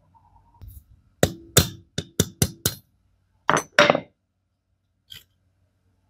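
Metal striking metal: about six quick, ringing taps in a row, then two more, with a few lighter clinks near the end, from work on a rusty vintage grip plier.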